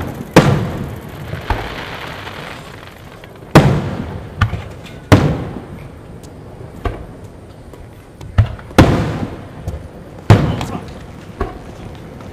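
Aerial fireworks shells bursting overhead: about ten sharp booms at uneven intervals, each followed by a rumbling echo that dies away.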